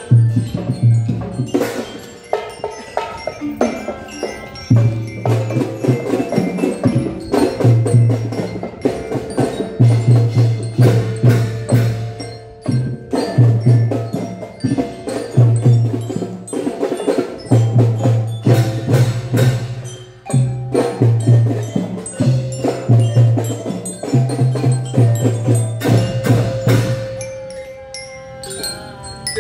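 Children's marching drum band playing a tune: a melody on metal-bar marching bells over a rhythmic beat of bass and snare drums with sharp percussive hits. The low drum beat drops out briefly a few times.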